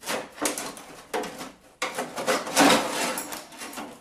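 Citroën DS sheet-metal engine plate being worked loose and handled, scraping and clattering against the car's metal in a run of loud rasps and knocks, loudest a little past halfway.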